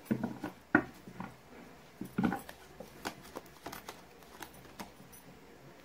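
Tarot cards being drawn from a hand-held deck and laid on a table: a string of short, irregular flicks and taps, the sharpest about a second in.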